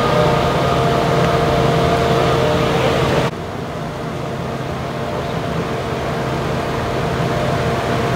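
Steady machine running noise with a constant hum, like engines running. It drops suddenly to a quieter level about three seconds in, then slowly builds again.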